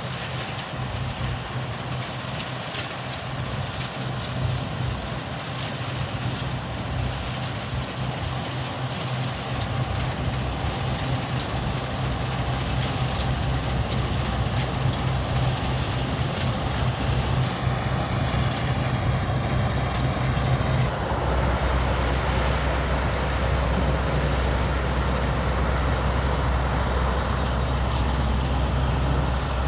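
Fortschritt E514 combine harvester running while it cuts, its engine steady and growing louder over the first several seconds as it draws closer. The engine note drops lower about two-thirds of the way through.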